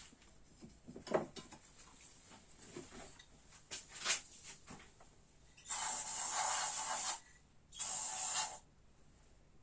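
Small clicks and knocks of metal parts being handled, then two bursts of pressurised spray hissing, the first about a second and a half long and the second shorter, as brake caliper parts are washed out.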